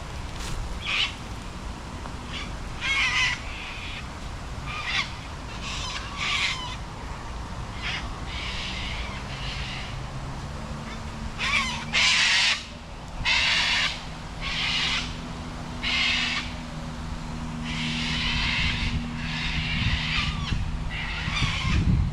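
Birds calling repeatedly in short, loud calls about every second or two, densest in the second half. From about halfway a low, steady engine hum comes in underneath and grows louder, as a vehicle approaches.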